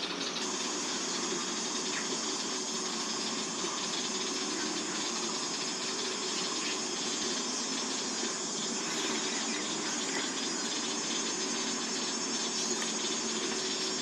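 Steady outdoor background noise: a high, even insect drone over a low hum of distant traffic, with no clear calls from the herons.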